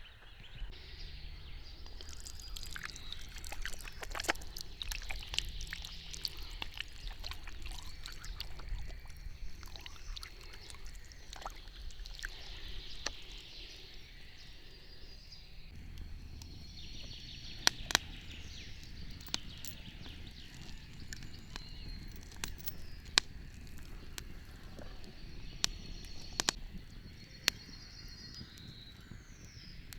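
Open wood fire and embers crackling, with scattered sharp pops and a few louder snaps in the second half. Faint bird chirps are heard near the end.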